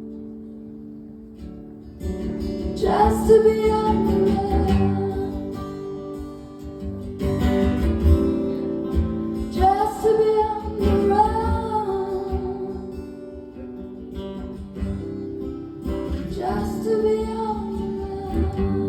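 Acoustic guitar playing a folk song, with a singer's voice coming in for several phrases about 3, 7, 10 and 16 seconds in.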